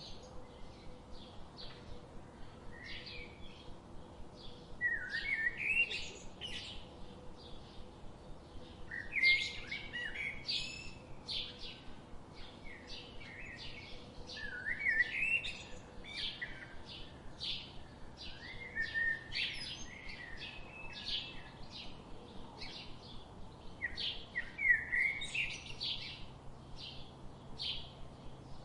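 Songbirds chirping: a steady stream of short, high chirps, with a louder phrase rising in pitch every few seconds.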